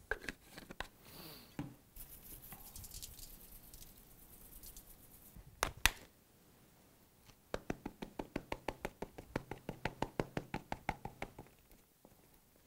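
Plastic spice-jar caps clicking and seasoning being shaken from a plastic shaker over a bowl of sliced potatoes and onions. First come scattered clicks and rustles and a sharp click near six seconds in, then a quick even run of rattling ticks, about eight a second, for some four seconds.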